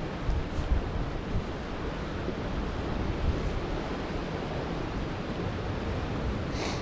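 Wind buffeting the microphone over sea washing against the rocks, a steady rushing noise. A brief click sounds near the end.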